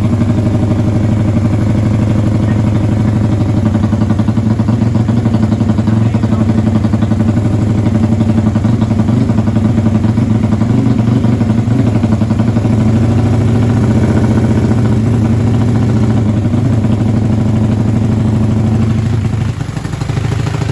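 Honda Tiger motorcycle's single-cylinder four-stroke engine running steadily, with a brief drop in level near the end.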